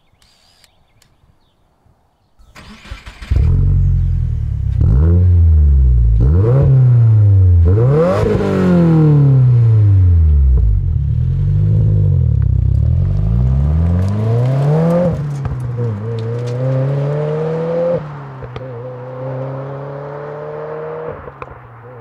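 2022+ Subaru WRX's turbocharged 2.4-litre flat-four through a titanium cat-back exhaust. The engine starts with a short flare, then is revved up and down about half a dozen times. It then pulls away, the pitch climbing and dropping at a gear change about two-thirds in and again near the end.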